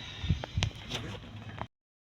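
A few sharp clicks and knocks from a gas geyser's control knob being turned and handled, over a low steady hum. The sound cuts off suddenly near the end.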